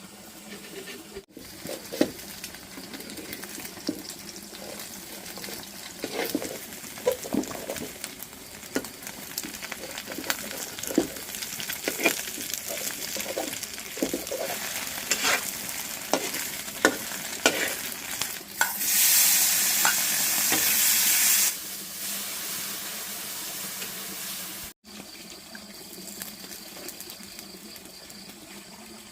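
Stir-frying in a hot pan: food sizzles while a spatula scrapes and knocks against the pan again and again, with a louder rush of hissing for a couple of seconds about two-thirds of the way through.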